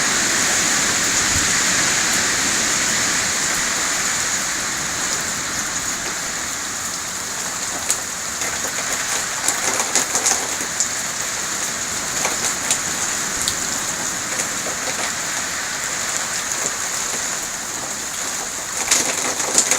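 Hurricane rain and wind making a steady hiss, slightly louder in the first few seconds, with scattered sharp ticks from about halfway through and a cluster of them near the end.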